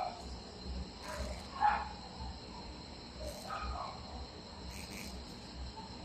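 Steady high-pitched trilling of insects, with a few brief, fainter sounds in between.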